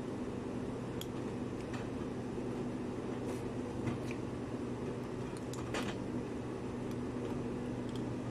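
Kittens crunching dry cat food, a scattering of short crisp clicks, over a steady low machine hum.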